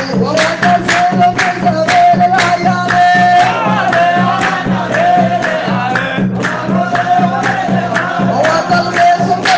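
Sufi devotional chanting of an Arabic praise poem for the Prophet (Qadiriya madih), a sung line held on a steady pitch over a regular percussive beat.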